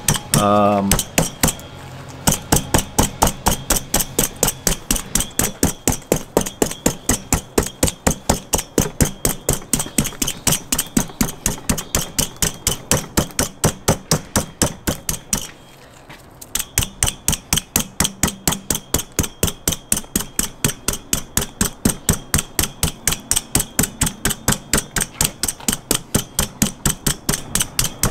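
A hand-held seasoning shaker being shaken hard over a whole pig, its contents rattling in steady sharp clicks about three a second, with a short pause about halfway through.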